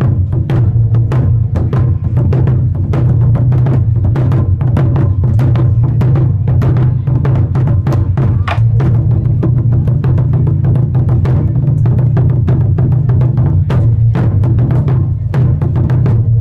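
Thai battle drumming: several large barrel drums beaten with sticks by an ensemble in a fast, continuous rhythm, the strikes running close together over a steady deep boom.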